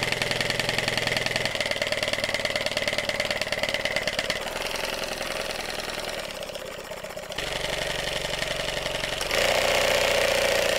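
3D-printed single-cylinder VTEC engine running fast under air pressure, with a quick, even beat. Its sound shifts several times as the exhaust back-pressure valve is tuned, and it jumps louder about nine seconds in, with the VTEC kicking in and switching the valves over.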